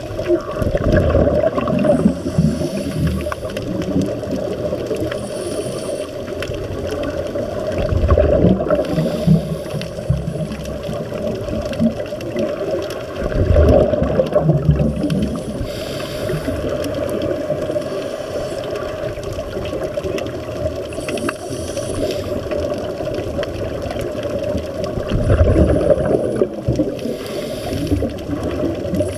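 Underwater scuba regulator exhalations: bubbling surges that swell up about four times, over a steady underwater rush.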